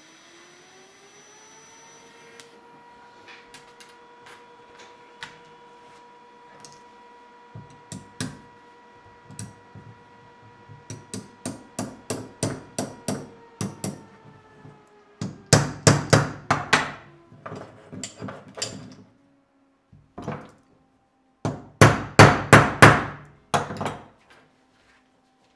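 A hand tool used as a hammer knocking on a welded steel tube-and-pipe part, metal on metal, in quick runs of taps that grow into two loud dense clusters in the second half. Underneath, a steady hum rises in pitch at the start and fades out about halfway through.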